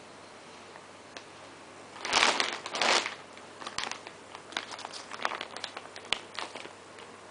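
Clear plastic bag of a vacuum-sealed pillow crinkling as hands grab and handle it: a loud burst of crinkles about two seconds in, then scattered short crackles.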